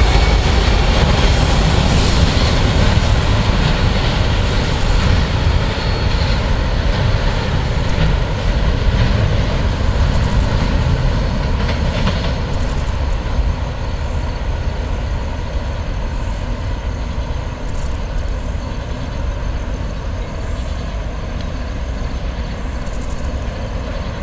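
The rear cars of a CSX freight train of autoracks roll past, then the train's low rumble slowly fades as it moves away.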